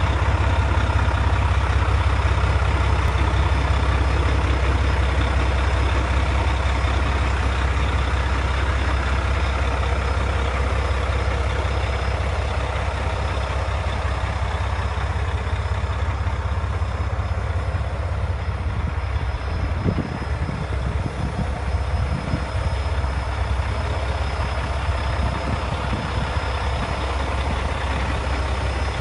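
Diesel engine of a Mack CHU613 semi-tractor idling steadily, a low even rumble.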